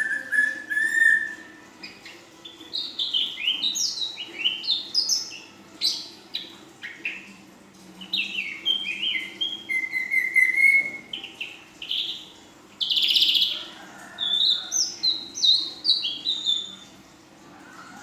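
Young female ashy drongo singing a fast, varied song of short falling chirps and whistles, with a longer whistle at the start and again about ten seconds in and a brief harsh note a little later. The song is full of mimicked notes.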